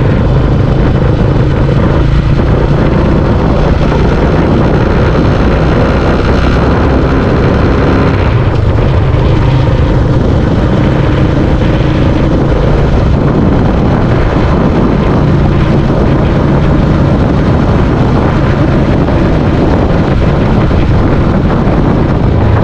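Yamaha motor scooter ridden at a steady road speed: heavy wind noise on the microphone with the small engine running underneath.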